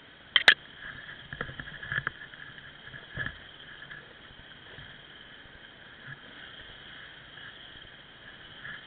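Dirt bike ridden over a rocky, leaf-covered trail, heard through a camera mounted on the bike: a steady muffled hum with knocks and rattles from the bumps, the loudest a sharp double knock about half a second in.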